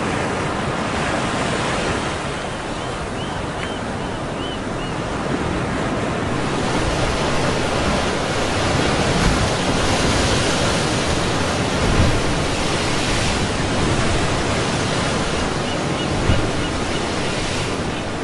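Ocean surf breaking and washing onto a beach, a steady rushing noise that swells louder through the middle as a wave breaks and runs up the sand. A few short, high chirps sound a few seconds in.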